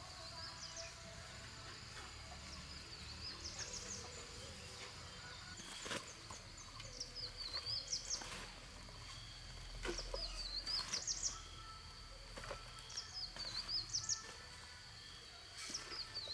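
A small bird sings the same short phrase of quick, high, rising notes about every three seconds. A steady high-pitched whine runs underneath.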